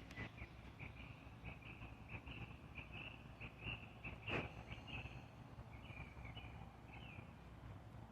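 A small bird chirping over and over, faint short notes about two a second, with one sharp click about four and a half seconds in.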